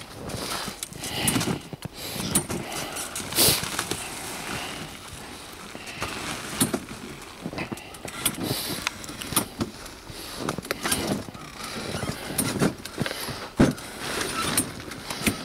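Frabill Trek 2 flip-over ice shelter being pulled over and settled: thermal canvas rustling with irregular clicks and knocks from its frame, one sharp knock about three and a half seconds in.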